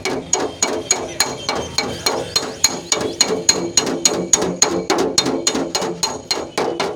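Hammer striking a car's sheet-metal body panel in quick, steady blows, about three to four a second, each with a short metallic ring: a dent being beaten out by hand without repainting.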